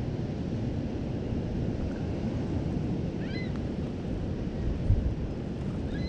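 Steady wind rumbling on the microphone at a lakeshore, with a few short high chirps near the middle and a low bump about five seconds in.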